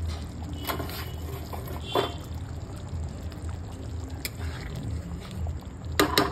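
Water being poured, over a steady low hum, with a few sharp knocks and clatters; the loudest is a quick pair of knocks near the end.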